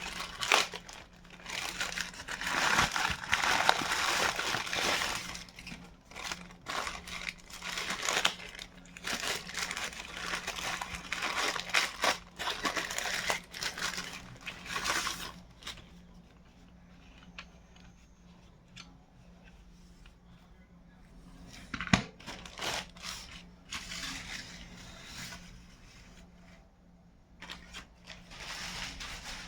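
Packaging of a charcoal pencil set being handled and opened: crinkling and rustling in irregular bursts with quieter pauses, and a single sharp click about two-thirds of the way through.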